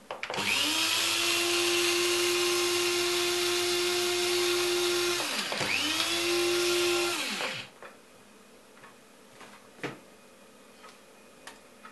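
Bosch electric blade coffee grinder running as it grinds coffee beans finer: a steady whine for about five seconds, a brief slowdown, then a second burst of about two seconds before it winds down.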